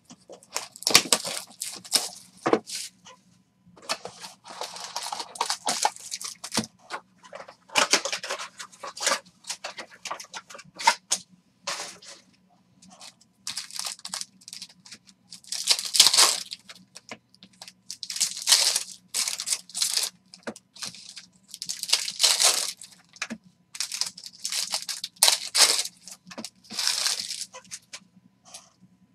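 Trading card box and foil card packs of 2020 Panini Select football being torn and ripped open, a string of short ripping and crinkling bursts that are loudest in the second half. A faint steady hum runs underneath.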